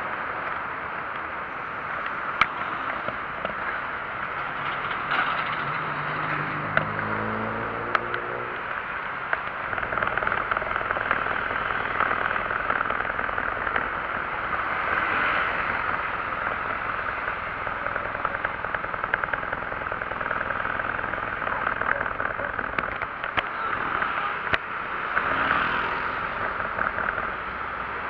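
Steady wind and road noise while riding along a road, with an engine rising in pitch as it speeds up about seven seconds in and again more faintly near the end, and a few sharp clicks.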